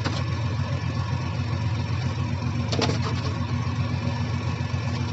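Large engine running steadily with a low, even rumble, with two short sharp clanks: one right at the start, one about three seconds in.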